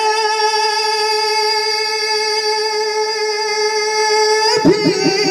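Male naat singer holding one long, steady unaccompanied note through a microphone and PA, then moving onto the next word near the end.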